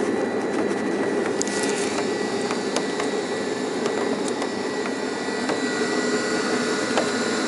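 Steady mechanical whirring of the volcano's cable-hung lift as it moves through the crater shaft, with a faint steady high whine and a few faint clicks.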